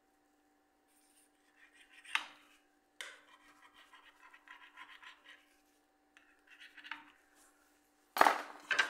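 Scraping and rubbing handling noises with a sharp knock about two seconds in and a louder clatter near the end, over a faint steady hum.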